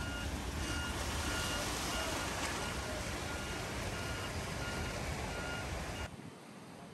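Steady rush and splash of deep floodwater as cars drive through it, over an electronic beep repeating about every 0.6 s, like a vehicle's reversing alarm. Near the end the sound cuts suddenly to a quieter hiss.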